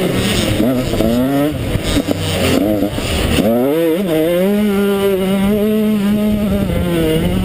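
Motocross bike engine at racing pace, its note rising and falling with the throttle, then climbing about three and a half seconds in and holding steady at high revs before a short drop near the end.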